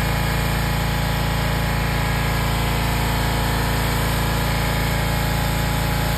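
Small gasoline engine running steadily at one constant speed, an even drone with no change in pitch.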